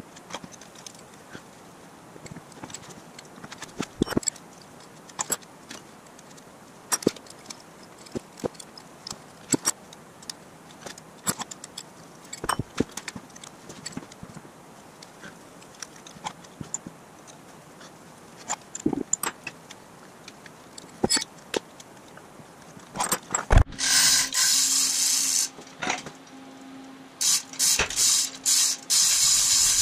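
Scattered metal clinks and clicks of hand tools on the bearing caps and bolts of a Jaguar 2.4-litre XK6 engine's bottom end. About 23 seconds in there is a loud knock, then a loud mechanical whirring with a steady hum: one run of about two seconds, then several short stop-start runs.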